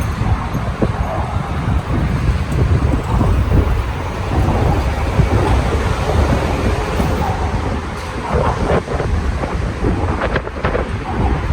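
Wind buffeting the microphone of a moving bicycle rider: a loud, steady low rumble.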